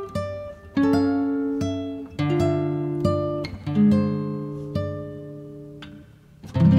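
Background music on acoustic guitar: plucked notes and chords, each ringing and fading, with a loud chord near the end.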